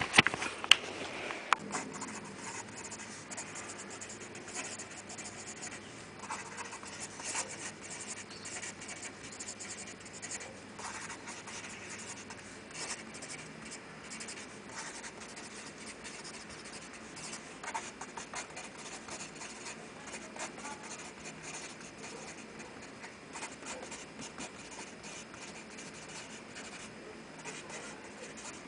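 Continuous dry scratching against a surface, like a pen or fingernail dragged over paper or a hard surface, with a few sharp clicks in the first two seconds.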